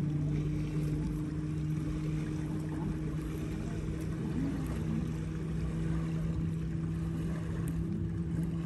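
Motorboat engine running steadily out on the river, a constant low drone that holds one pitch throughout.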